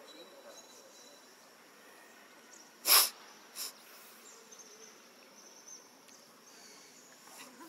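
Faint chirring of insects, with a short, sharp hissing burst about three seconds in and a smaller one just after.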